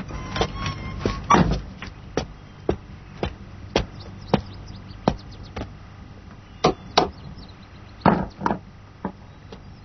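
Repeated sharp knocks, about two a second with a few short pauses, like blows being struck on wood.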